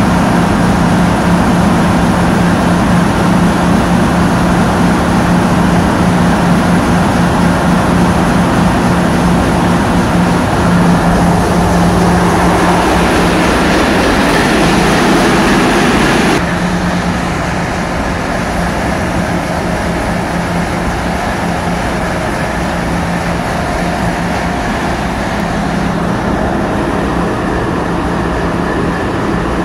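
Tugboat's diesel engines running with a steady, loud drone, heard from on board. A rushing noise builds for a few seconds past the middle, then the sound drops suddenly to a quieter, steady drone.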